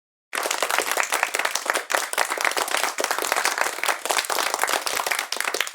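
Crowd applause: many hands clapping densely, starting suddenly about a third of a second in and holding steady.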